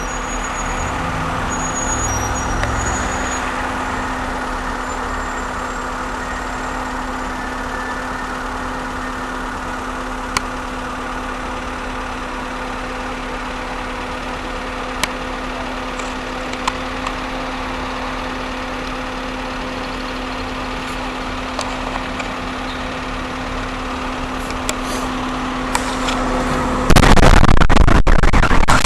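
A steady hum with a constant low tone, broken by a few faint clicks; about 27 seconds in, the Chelyabinsk meteor's shockwave arrives as a sudden loud boom that carries on as loud noise full of crackles.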